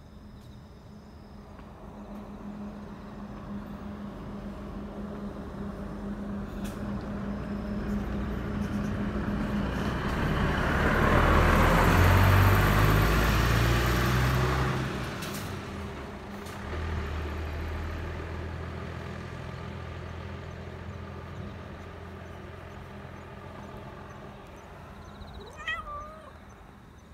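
A motor vehicle passes close by: engine and road noise swell for about twelve seconds, peak, then fade to a low engine hum. Near the end a black Persian cat gives a short meow.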